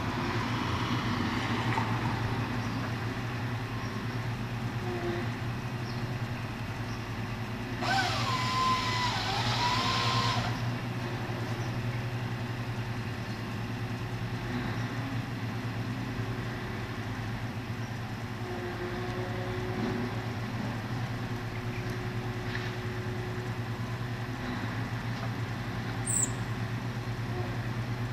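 Truck-mounted tree-felling crane running steadily, its engine drone with a faint steady hum above it. About eight seconds in, a louder hissing burst with a whine that dips and climbs lasts a couple of seconds.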